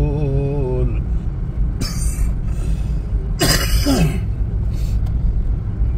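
Inside a moving car, a person coughs or clears their throat twice, a short burst about two seconds in and a longer one around three and a half seconds, over the car's steady low road rumble. A held sung note fades out about a second in.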